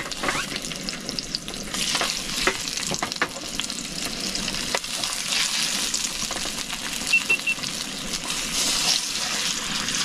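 Pink salmon steaks frying in a hot pan: a steady sizzle of oil with many scattered small crackles and pops.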